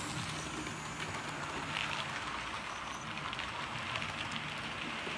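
Model railway train, a steam-outline locomotive hauling a rake of coaches, running along the track: a steady whirr from the locomotive's motor with a fine rattle of wheels on the rails.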